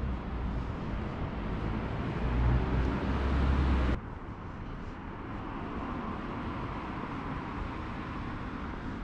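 Road traffic on a city street: vehicles running past with a low rumble, loudest around three seconds in. About four seconds in the sound cuts off abruptly to a quieter, steady traffic hum.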